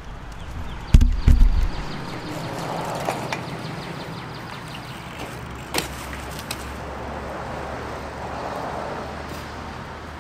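A few heavy thumps about a second in as the camera is set down, then a steady rolling noise of a BMX bike's tyres on a concrete driveway, with a single sharp click near the middle.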